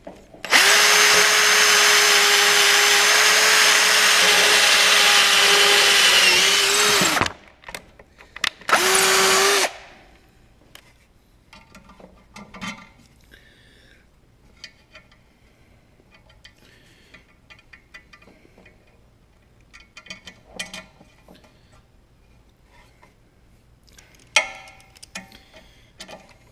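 Power drill running at a steady full speed for about seven seconds, boring a hole through a snowblower's metal impeller blade and paddle bar, then spinning down. A second short burst of drilling follows. After that there are only faint clicks of tool handling, with one sharper metal clink near the end.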